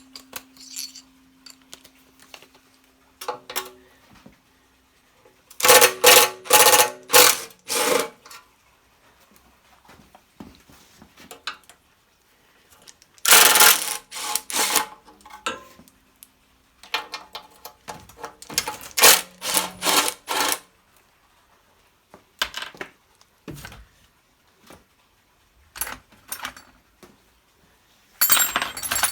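Ratchet wrench with a socket extension undoing small 10 mm bolts on a generator's metal casing: three runs of rapid ratchet clicking with single metal clinks and knocks between them.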